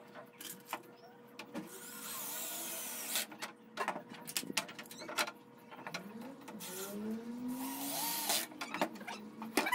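Corded electric drill driving screws into the wooden frame of a small door, in two short runs of about a second each, about two seconds in and again near the end. Wood knocks and clatters as the frame is handled between the runs.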